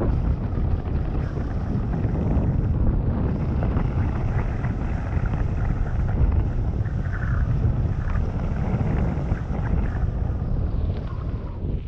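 Wind buffeting a mountain biker's camera microphone as the bike is ridden along a trail, a continuous low rumble with the bike's rattling and clattering over rough ground.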